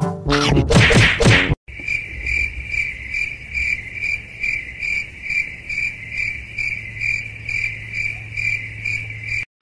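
Cricket chirping: a steady, high, pulsing chirp a little over twice a second, starting abruptly after a short, loud pitched sound in the first second and a half, and cutting off suddenly just before the end.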